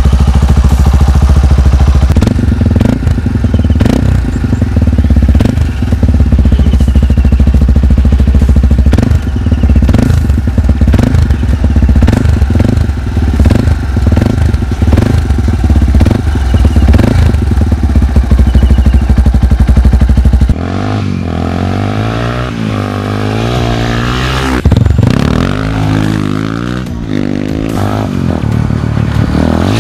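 Yamaha Serow 225's single-cylinder four-stroke engine running loud and close. About two-thirds of the way through it turns quieter, with the revs rising and falling again and again as the bike is ridden.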